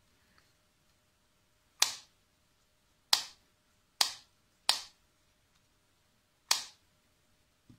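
Hinged lid of a JLab JBuds Air ANC earbud charging case snapping shut and open, five sharp snaps at uneven intervals, each dying away quickly.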